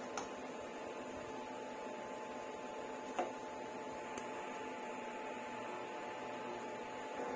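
Steady electrical hum with a faint high whine, broken by a few light clicks, the sharpest about three seconds in.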